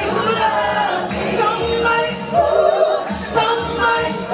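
A singer performing a song over backing music, holding long notes.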